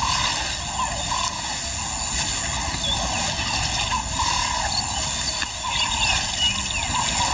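Lioness pawing and scraping at dry earth to bury the stomach of her kill, with short chirps repeating in the background.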